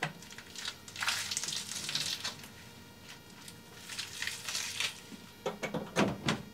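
A head of cabbage being torn apart by hand: crisp crunching and rustling of leaves coming in bursts, with a few sharp clicks near the end.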